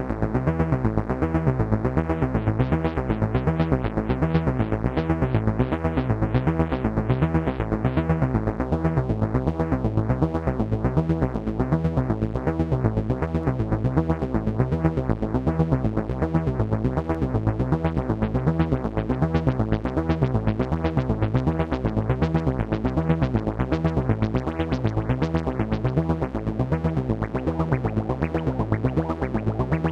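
AnalogFX SER-2020 analog synthesizer playing a fast, even, repeating pulsing pattern over steady held tones. Its filter opens brighter for the first several seconds, then closes back down about eight seconds in.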